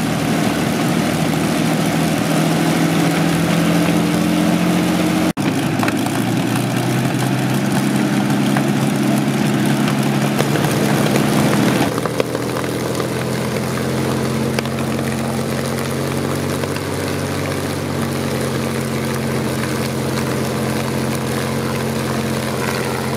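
Rolls-Royce Merlin V12 aero engine running at a steady speed. The sound drops out for an instant about five seconds in, and about twelve seconds in it changes to a lower, slightly quieter note.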